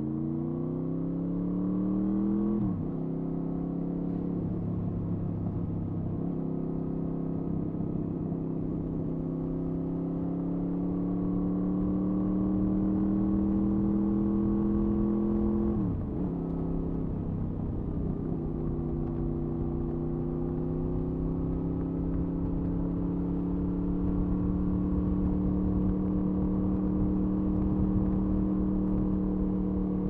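2007 Honda VFR800A Interceptor's V4 engine and exhaust under way. It revs up quickly and shifts up about three seconds in, climbs slowly in revs, shifts up again about halfway through, then holds a steady cruise with the revs creeping up.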